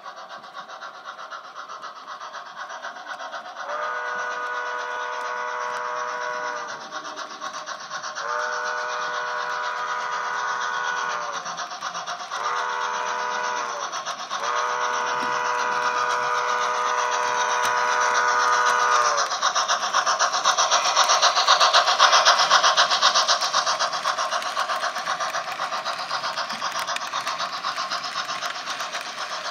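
An HO-scale model locomotive's sound decoder sounds a multi-note chime in the grade-crossing pattern of long, long, short, long. The train then passes close by, with a steady running and rolling noise and fine rapid clicking that swells and then eases off.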